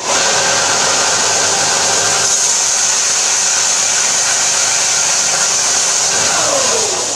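Bench-top belt-and-disc sander running steadily with a piece of plastic held against the belt. About six seconds in it is switched off and the motor winds down with a falling whine.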